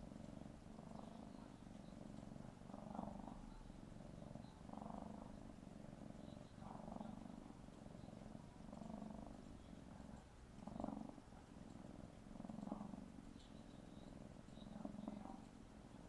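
Tabby kitten purring, faint and steady, swelling and easing about once every two seconds as it breathes in and out.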